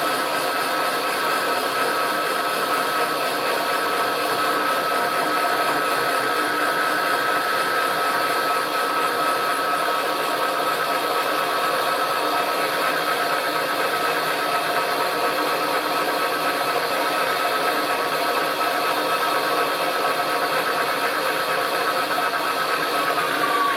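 Milling machine running a slitting-saw cutter along the underside of a weld-built brake caliper mounting lug: a steady mechanical whine with a high tone. The tone falls in pitch near the end.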